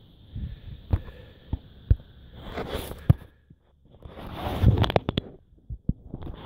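Handling noise on a camera's built-in microphone: scattered dull thumps, then two bursts of rubbing and scraping with clicks, about two and a half seconds in and again from about four to five seconds, as the camera is fumbled to be switched off.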